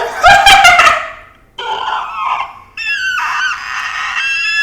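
A person squealing in a high voice with delight, three drawn-out squeals one after another, the last held the longest.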